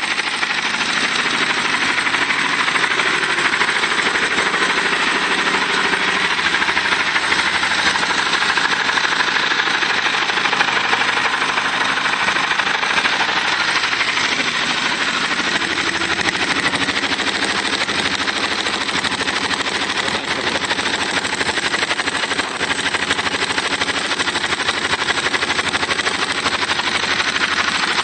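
Aprilia Pegaso 650's single-cylinder engine running steadily at idle just after a cold start, heard close to the engine.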